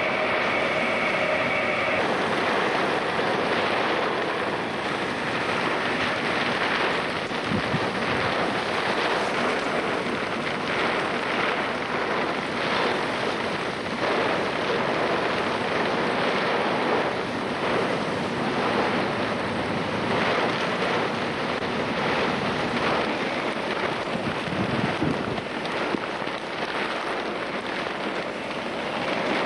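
Severe thunderstorm winds with heavy rain: a steady rushing noise that swells and eases, with gusts buffeting the camcorder's microphone.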